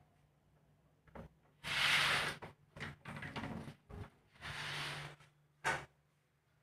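A door being opened and closed: several sharp clicks and two short sliding, rushing noises, over a low steady hum.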